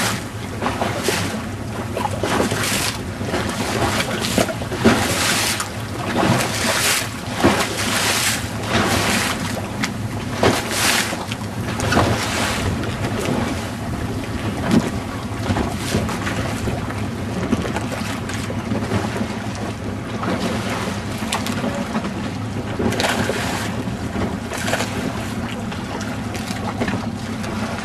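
A small boat's engine running steadily at low speed, with wind gusting on the microphone and water splashing.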